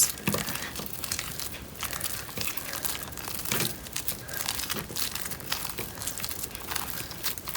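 Cloud slime mixed with instant snow being kneaded and stretched by hand, a dense run of small crackles as the snow in it is worked.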